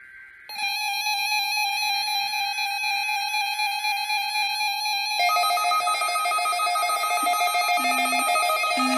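Several weather radio receivers sounding their electronic alert tones at once, set off by the weekly test. One steady high-pitched alarm starts abruptly about half a second in. A second, higher alarm joins about five seconds in, and a low beep pulsing about once a second joins near the end.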